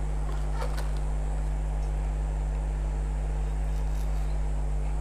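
Steady low electrical hum with a few faint clicks from a cardboard box being handled.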